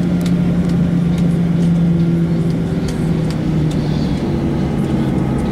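Cabin noise of a Boeing 737-900ER taxiing: a steady drone from its CFM56 jet engines, with a low hum that steps down in pitch partway through, and faint scattered ticks and rattles.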